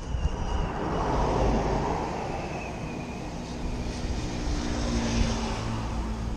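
FPV quadcopter's brushless motors whining and buzzing in flight, the pitch wavering as the throttle changes, over a rushing of air and a low rumble.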